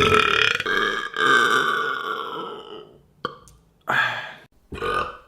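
Human belching: a loud burp at the start, then a long drawn-out belch lasting about two seconds that sinks slightly in pitch, followed by a click and two short sounds near the end.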